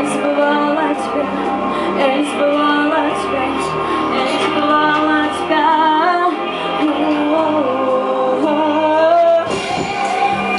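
Pop song performed live, a woman singing the melody over full accompaniment with regular percussion strokes.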